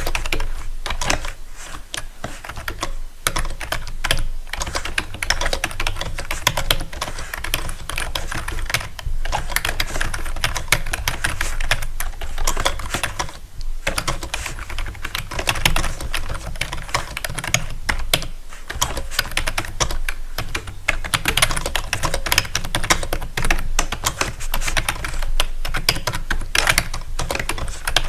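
Fast, continuous typing on a keyboard: a dense, irregular stream of key clicks, with a brief pause about halfway through.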